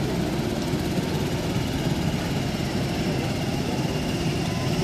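Motorised bumper boats running steadily on the pool, a continuous low engine drone.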